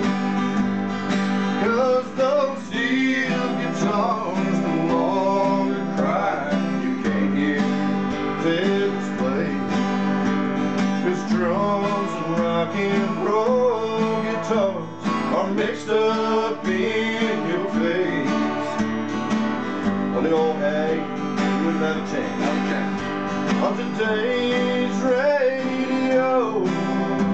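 Two acoustic guitars strummed in a country song, with a man singing the melody over them.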